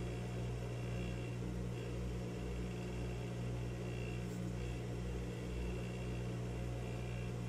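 Steady low electrical hum, unchanging throughout.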